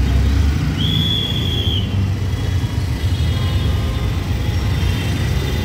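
Auto-rickshaw engine running in slow stop-and-go traffic, a steady low rumble heard from inside the open cabin. A single high horn beep, about a second long, sounds about a second in.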